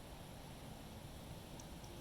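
Wind rumbling and buffeting on the microphone as a steady low noise, with a couple of faint high ticks near the end.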